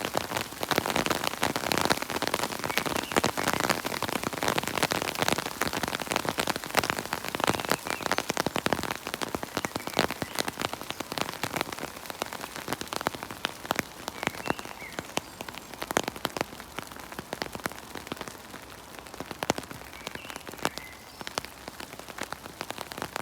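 Rain falling in a forest: a dense patter of many separate drops, heavier at first and easing a little in the second half, with a few faint short chirps near the end.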